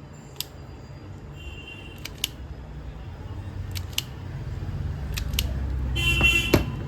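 Sharp clicks of small tools and parts being handled at a workbench, mostly in pairs, then a brief rasping rattle near the end that finishes with a hard click. A low rumble builds underneath from about halfway.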